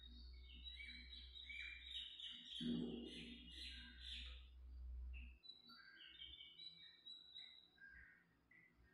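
Faint chirping of small birds: many short, high calls, busiest in the first half and sparser later. A low hum underneath stops about five and a half seconds in.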